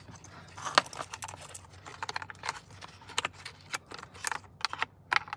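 Irregular light clicks and rattles of plastic wiring connectors and the steering wheel being handled, as the airbag and spiral cable connectors are fed through the wheel's hub and the wheel is lifted off the steering shaft.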